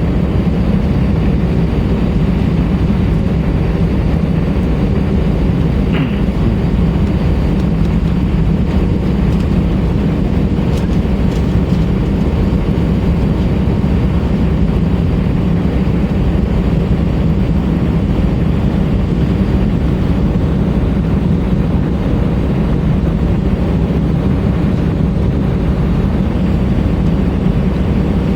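Steady drone of an Airbus A320-232's IAE V2500 engines and rushing airflow, heard inside the passenger cabin: a constant low hum with no change in level.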